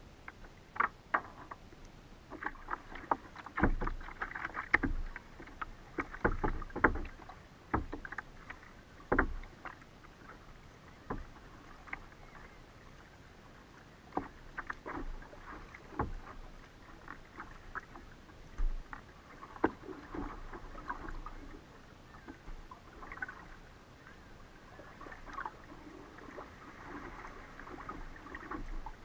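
Water splashing and slapping against a plastic kayak hull as it is paddled in through small waves, heard as irregular splashes and knocks.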